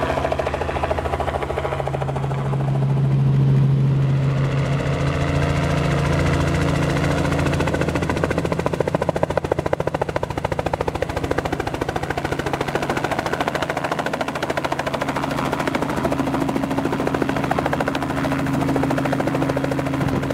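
Robinson R44 helicopter running: the steady rapid beat of its main rotor over the hum of its engine, heard in flight and then as it comes in to land and sits on the ground with the rotor still turning.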